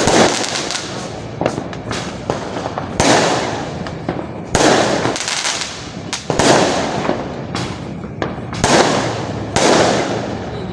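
Fireworks going off: about seven sharp bangs spaced a second or two apart, each trailing off into a crackling hiss, with a steady crackle in between.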